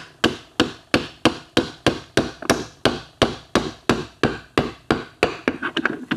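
Hammer tapping steadily on a metal drift, about three blows a second, driving a press-fit bushing down into a Triumph Tiger Cub's aluminium engine case. Near the end the blows come quicker and lighter.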